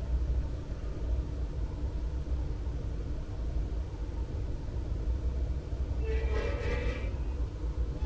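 Steady low outdoor rumble, with a brief horn-like tone of several pitches about six seconds in.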